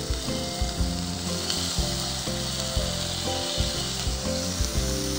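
Steamed broccoli, carrot and capsicum going into a frying pan of hot oil and sizzling, with a steady hiss.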